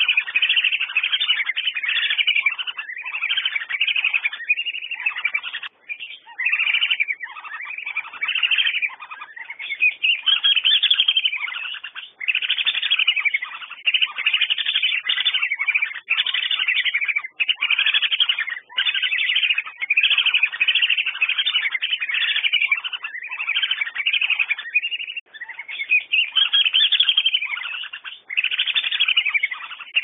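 Whistling ducks (Dendrocygna) calling: a near-continuous run of loud, repeated whistled notes that rise and fall in pitch, broken only by short gaps.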